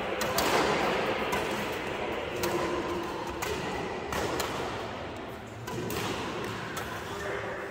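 Badminton rackets striking a shuttlecock in a doubles rally: sharp hits about once a second, over steady background noise.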